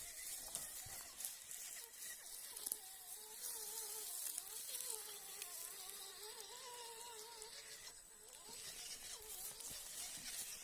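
RC rock crawler's small electric motor whining faintly as it crawls, its pitch wavering up and down with the load, with light crackling of leaves and twigs under the tyres.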